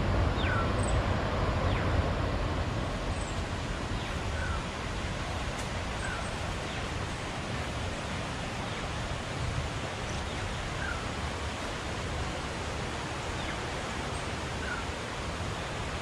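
Steady rushing noise, louder in the first few seconds, with a bird's short chirp repeating every couple of seconds.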